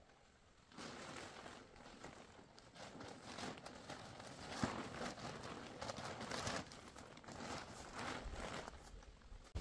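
Irregular rustling and crunching that begins about a second in, with one sharper knock near the middle.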